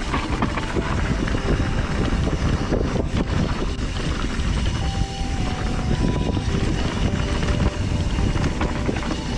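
Mountain bike riding down a dirt trail: tyre noise over the ground, many small knocks and rattles from the bike over bumps, and wind on the microphone.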